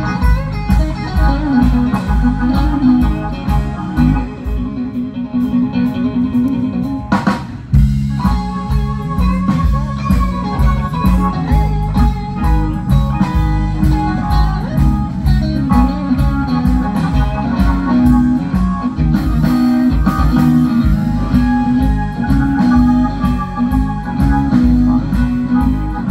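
Band playing blues-rock: electric guitar over bass and drums with a steady beat. The bass and drums drop back for a few seconds, then a sharp hit brings the full band back in about seven seconds in.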